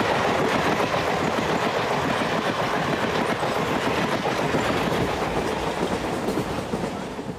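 A train running on the track, with a steady rumble and the clatter of wheels over rails. A few faint steady tones fade out in the first second, and the noise eases slightly near the end.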